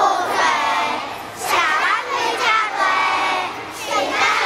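A large group of young children singing together in high voices, in short phrases about a second long with brief breaks between.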